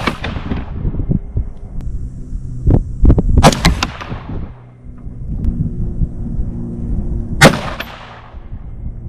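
Single rifle shots from a 22 ARC AR-platform rifle, fired about four seconds apart during a three-shot group. One shot lands right at the start, and two more come about three and a half and seven and a half seconds in; each has a short echo trailing off.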